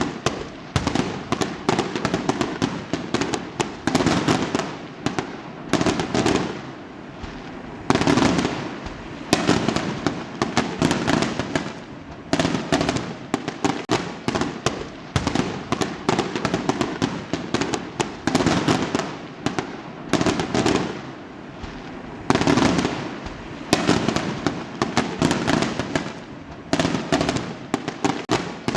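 Fireworks exploding: a dense, continuous crackle of many small pops, with louder clusters of bangs swelling every few seconds.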